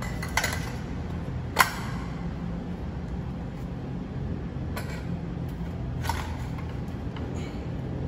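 A few sharp metallic clinks over a low steady hum: four short strikes, the loudest about a second and a half in.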